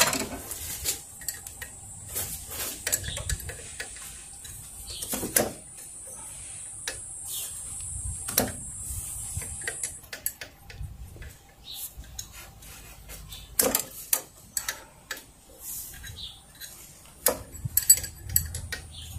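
Irregular metallic clinks and ticks of a spanner working on the brake pipe fittings of an ABS unit as they are loosened, with a faint steady high hiss through about the first half.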